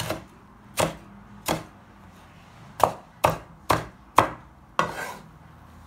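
A cleaver chopping a green pepper into pieces on a wooden cutting board: about eight separate knife strokes, three spaced out, then a quicker run of five.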